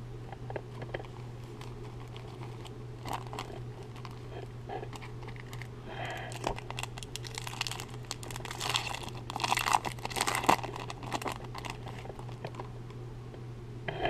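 A baseball card pack's wrapper torn open and crinkled by hand, the crackling densest and loudest about halfway through and shortly after, with lighter clicks of cards being handled before it.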